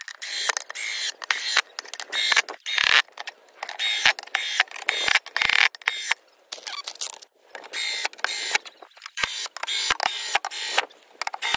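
Cordless drill driving wood screws into wooden boards, several screws in a row with short pauses between them.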